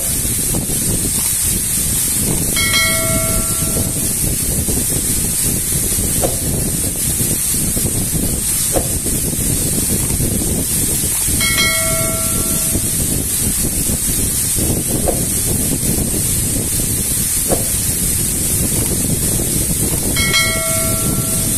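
Steady rush of a waterfall splashing onto rocks and a pool close by. A short bell-like chime sounds three times over it, about nine seconds apart.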